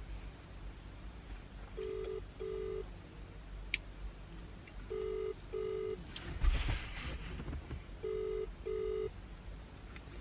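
British telephone ringback tone heard through a phone's speaker while an outgoing call waits to be answered: three double rings, each a pair of short steady tones, about three seconds apart. A brief rustle comes between the second and third rings.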